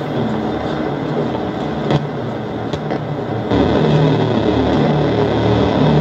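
Experimental noise music: a dense, continuous wash of distorted noise with shifting low droning tones, growing louder and heavier in the bass about three and a half seconds in.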